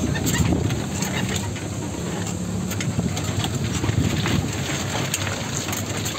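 Vehicle engine running at low speed, with scattered knocks and rattles.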